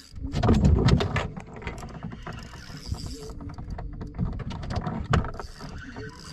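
Fishing reel being cranked against a hooked catfish, a run of clicks and clatter with knocks. The loudest burst comes about half a second to a second in, and another sharp knock just after five seconds.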